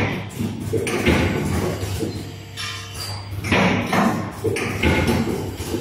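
Automated spin column assembly machine running, its mechanisms clacking and knocking irregularly several times a second over a steady low hum.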